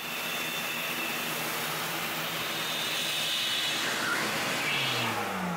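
A 5-horsepower shop vac running steadily, its hose pressed onto the bike's seat tube to pull dental floss up through the frame. The motor's pitch drops near the end.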